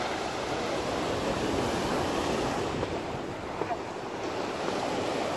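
Ocean surf washing and breaking against the boulders of a rock jetty, a steady rush of white water.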